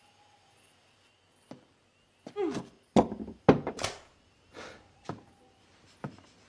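Heavy wooden door creaking briefly and then thudding shut in two loud thunks about half a second apart. A few lighter knocks follow, like footsteps on a wooden floor.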